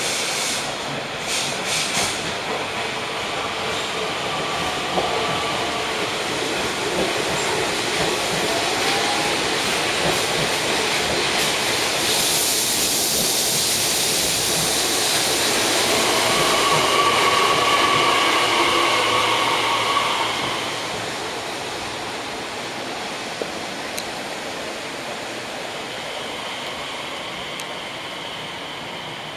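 Nishitetsu 3000 series electric train pulling into a station platform: wheels clicking over rail joints at first, running noise growing as the cars pass, then steady high squealing tones as it slows, before the noise dies down over the last third.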